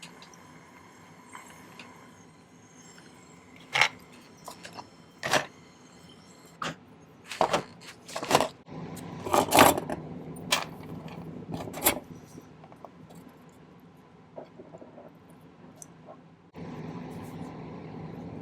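Sterling silver chain links clinking and jingling as the chain is handled, with a dozen or so sharp metallic clinks between about four and twelve seconds in. A steady hiss starts suddenly near the end.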